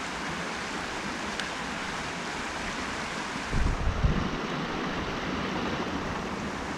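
Small spring-fed stream running steadily, a constant rushing of water. About three and a half seconds in comes a brief low rumble, like wind buffeting the microphone.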